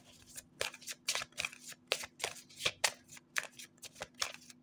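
A deck of oracle cards being shuffled by hand: a quick, irregular run of light, crisp card snaps, three or four a second.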